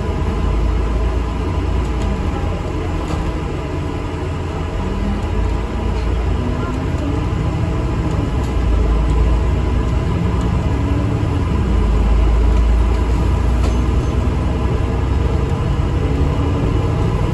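Ride inside an ADL Enviro 400 MMC double-decker bus on the move: steady low rumble from the engine and road, with a constant hum, swelling slightly about eight seconds in and again near twelve seconds.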